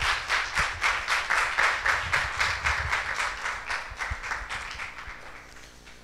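Audience applauding with many hands clapping, fading away over the last couple of seconds.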